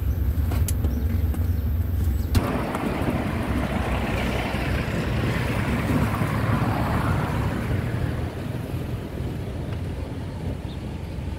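Motor vehicle noise: a low engine rumble that cuts off suddenly about two seconds in. A rushing road noise takes its place, swells, then slowly fades away.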